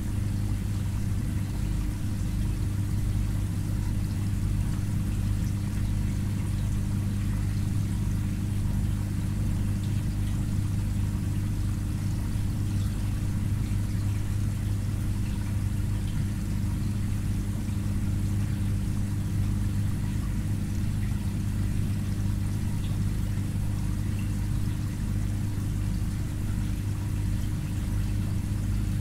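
Aquarium filter pump running with a steady low hum, under the sound of water trickling and pouring in the tank.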